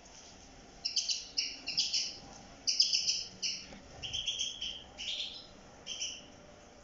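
A flock of European goldfinches twittering: clusters of short, bright chirps that come in quick runs from about a second in, thinning out near the end.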